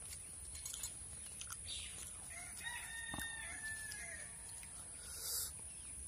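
A rooster crowing once, faintly: one long held call of about a second and a half, starting about two and a half seconds in. Faint clicks of fingers against a steel dish, and a short hiss about five seconds in.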